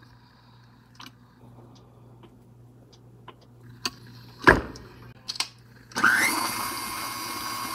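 Small clicks of a spatula scraping butter and sugar off a wire whisk, then a clunk as the tilt-head of a KitchenAid Classic stand mixer is lowered about four and a half seconds in. About six seconds in the mixer's motor starts and runs steadily with a whine, creaming butter and sugar with the wire whisk.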